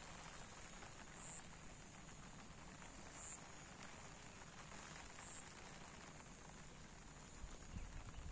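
Faint steady outdoor ambience: a soft even hiss, with low rumbling that picks up a little near the end.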